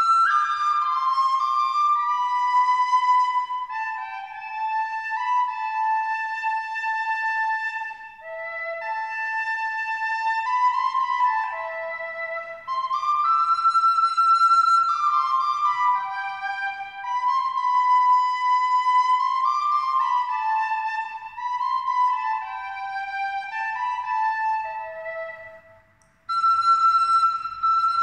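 Instrumental music: a slow melody of held high notes, often two sounding together, that breaks off briefly near the end and then resumes.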